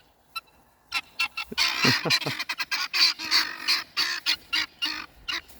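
A flock of guineafowl calling loudly in rapid, harsh, repeated cries that start about a second in and overlap one another, the birds excited at feeding time.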